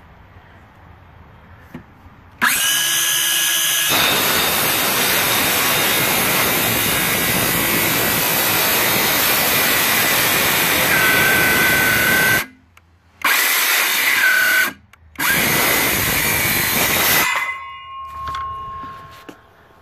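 Craftsman C3 19.2-volt cordless 5½-inch trim saw spinning up and cutting through an old pressure-treated 2x4 with a dull old blade. It runs loud and steady, stops twice briefly and restarts, then spins down near the end.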